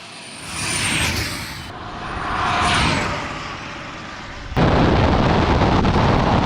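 High-speed electric ride-on toy car passing twice, each pass a swell of noise with a high whine that falls in pitch, then a loud, steady rush of noise about two-thirds of the way in.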